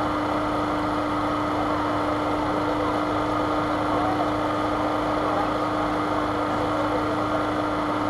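A steady machine hum at one constant pitch, unchanging throughout, with faint voices in the background.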